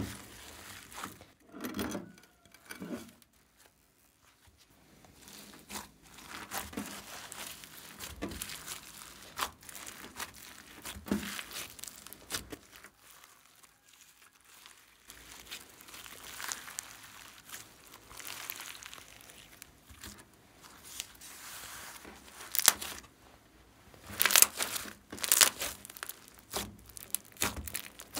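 Glossy slime mixed with foam beads, glitter and crunchy pieces being kneaded and stretched by hand: irregular squishing and crackling with small pops. Brief lulls, and the loudest, sharpest pops come near the end.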